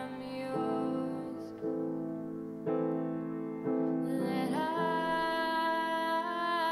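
A female singer with piano accompaniment: the piano strikes a slow chord about once a second while the voice holds long notes with vibrato, fading back in the middle and swelling up again about four seconds in.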